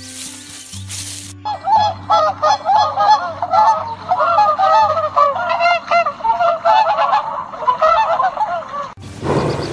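A flock of birds honking: many overlapping calls, starting about a second and a half in and stopping just before the end, over soft background music.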